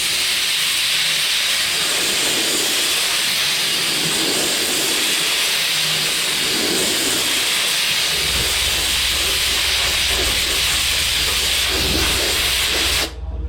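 Welding arc running on a steel fender patch panel, a steady loud hiss while the remaining holes along the patch are filled in. It cuts off sharply near the end, and a low hum joins about eight seconds in.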